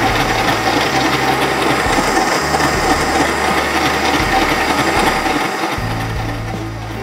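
Kenwood kMix stand mixer running steadily at speed, beating eggs and sugar into a foam, with a continuous motor hum and whir. The sound dips slightly near the end.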